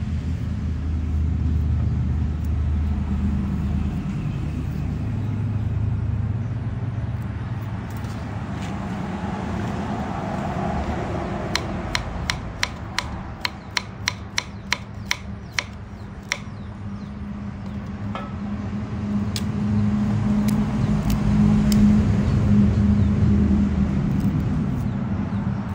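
Kitchen knife chopping turmeric root on a wooden cutting board: a run of about a dozen sharp knocks, roughly three a second, midway through, with a few single knocks later, over a steady low rumble.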